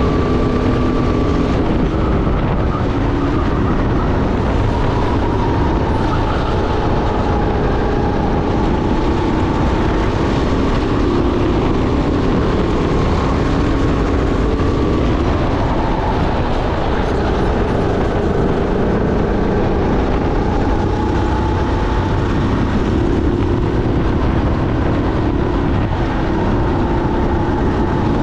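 Sodi SR5 rental kart's engine running at speed, heard from the driver's seat over heavy wind and road rush. Its pitch rises and falls as the kart accelerates and slows through corners.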